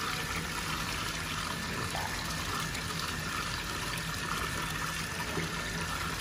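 Water running steadily into a pedicure foot-spa basin, with a faint steady low hum.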